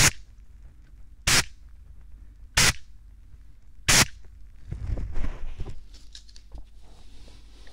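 Four short, sharp bursts right at a binaural dummy-ear microphone, evenly spaced about 1.3 seconds apart, followed about a second later by a second of soft rustling and handling.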